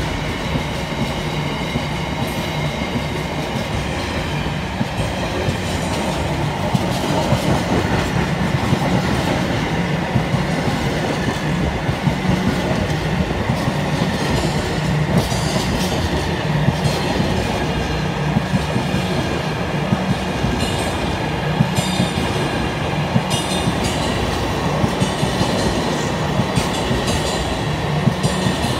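Train of empty container flat wagons rolling through at speed: a steady rumble of steel wheels on the rails, with frequent short clanks and clicks from the unloaded wagons, more of them in the second half.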